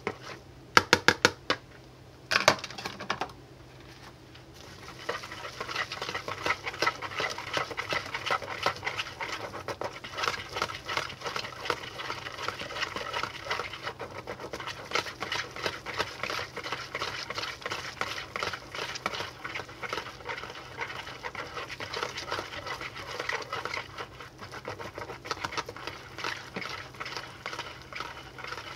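A wire whisk beating a thick soap mixture in a plastic bowl, its wires ticking rapidly and unevenly against the bowl. Near the start there are a few sharp knocks, then a short lull before the whisking resumes about five seconds in.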